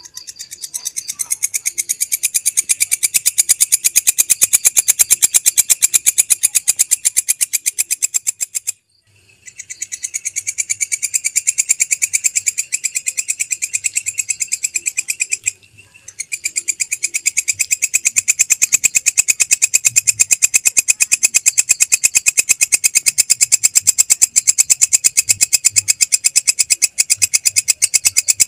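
Belalang kecek, a katydid, calling: a long, rapid, evenly repeated train of high, dry pulses that swells in loudness at the start of each bout. It breaks off briefly twice and starts again.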